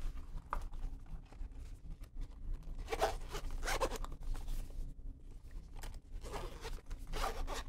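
Zipper on a hard-shell travel case being pulled closed around the case in several short rasping pulls, with light handling of the case between them.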